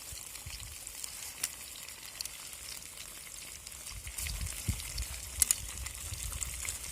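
Potatoes frying with pork fat in a pot over a campfire: a steady sizzle with a few sharp pops, two close together about five and a half seconds in. A low rumble joins about four seconds in.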